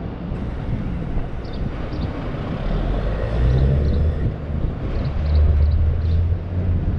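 A vehicle engine's low steady drone comes in about three seconds in and grows stronger, over a constant outdoor noise floor. A few short high chirps are scattered through it.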